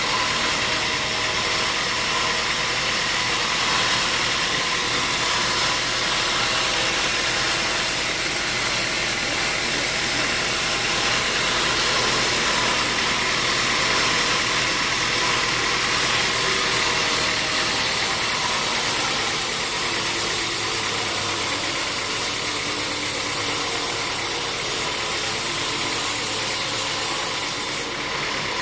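Sawmill machinery running with a loud, steady mechanical noise and a faint hum. A brighter hiss comes in about halfway through and drops out just before the end.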